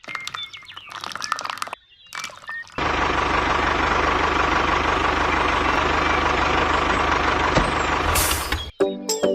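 After a few seconds of chirpy music, a motor starts abruptly and runs steadily for about six seconds. Near the end there is a short hiss, and the motor cuts off suddenly.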